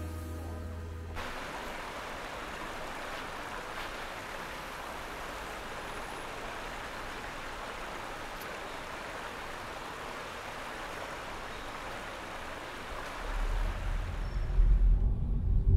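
Steady rush of flowing canal water. Background music fades out about a second in, and near the end a low rumble comes in.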